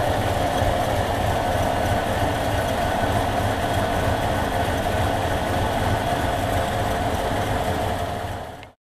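1969 Chevy pickup engine idling steadily; the sound cuts off abruptly near the end.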